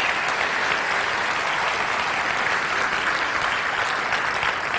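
A crowd of people applauding, a dense patter of many hands clapping that starts to die down near the end.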